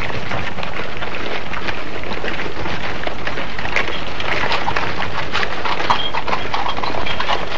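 Horses' hooves clip-clopping on a paved street as horse-drawn carriages pass, a busy run of irregular clacks over a steady low hum.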